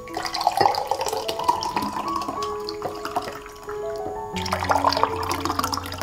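Thick fruit juice poured from a glass jar into glass mugs, splashing steadily with a short break about four seconds in, over soft background music.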